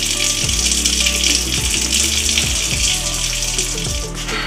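Kitchen sink faucet running in a steady stream, turned off about four seconds in.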